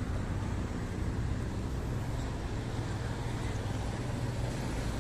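Steady outdoor background noise: a low, wavering rumble under an even hiss, with no distinct event standing out.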